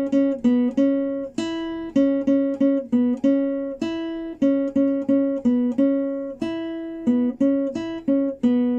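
Classical guitar played as a slow single-note melody: about two plucked notes a second, mostly moving between a few pitches on the second and first strings, each note ringing until the next.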